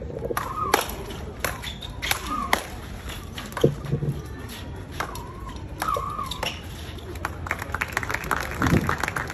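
Speedball rally: solid paddles striking the tethered ball in sharp, irregular cracks, about one to two a second, with short sneaker squeaks on the court floor.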